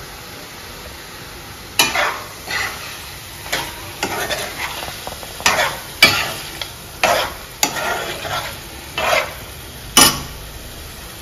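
Metal spoon stirring and scraping masala-coated chicken pieces around a non-stick frying pan, about ten separate strokes, over the low sizzle of the chicken frying in oil.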